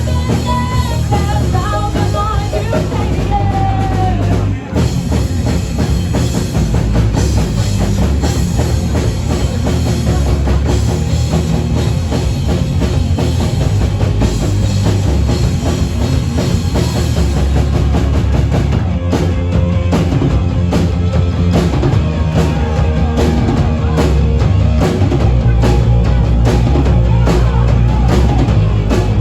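Live rock band of drums, bass and electric guitar playing loudly, with a brief drop-out about four and a half seconds in. Past the middle, hard, evenly spaced drum hits come to the front.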